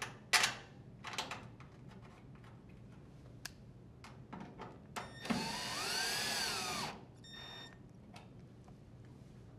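Cordless drill/driver runs for about two seconds, its whine rising and then falling in pitch, as it drives a screw into the dryer's sheet-metal top panel. A few light clicks and taps of handling come before it, and a brief fainter whir follows.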